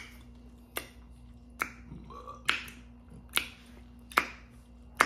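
Fingers snapping in a steady rhythm, a sharp snap a little more often than once a second, with a faint steady hum underneath.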